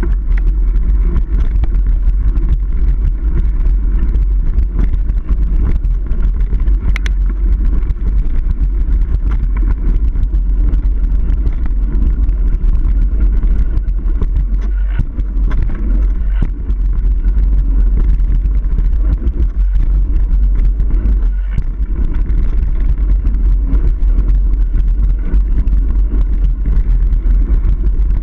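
Steady low rumble of wind buffeting and trail vibration on a camera riding along on a mountain bike over dirt singletrack, with tyre noise and a few sharp clicks and knocks from the bumps.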